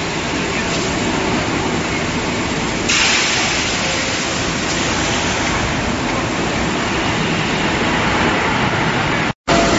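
Loud, steady roar and hiss of heavy machinery in a steel pipe mill. The hiss gets brighter about three seconds in, and the sound cuts out for a moment near the end.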